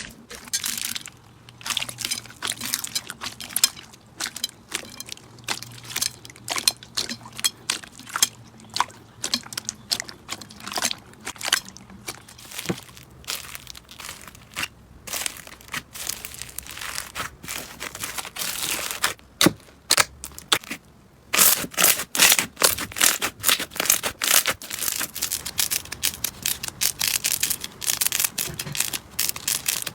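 Slime being squeezed and pressed by hand, giving off many small crackling pops. There is a short pause about two-thirds through, then the crackling comes denser and louder.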